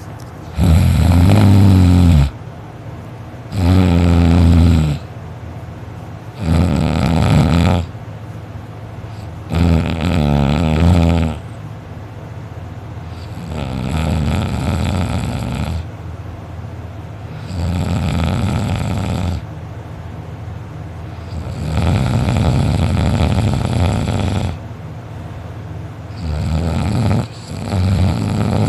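A sleeping person snoring very loudly: about eight long snores roughly every four seconds, the first few the loudest.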